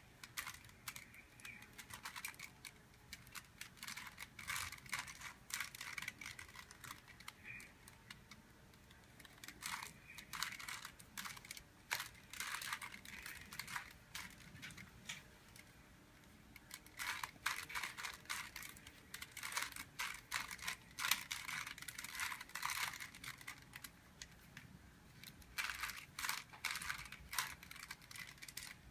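Rubik's cube being turned by hand: quick runs of plastic clicking and rattling as the layers are twisted, in bursts of a few seconds with short pauses between them.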